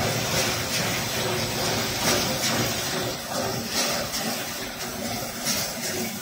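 Apple slicing machine running: a steady mechanical noise with hiss and occasional light clicks.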